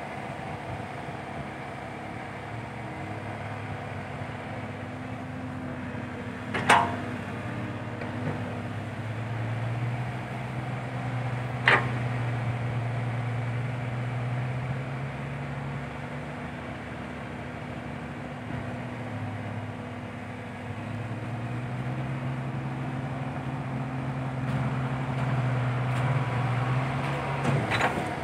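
Komatsu PC120-5 hydraulic excavator's diesel engine running, its note rising and holding in two long stretches as the hydraulics take load while it digs and swings sand. Two sharp metallic clanks from the bucket and boom, a few seconds apart, with another near the end.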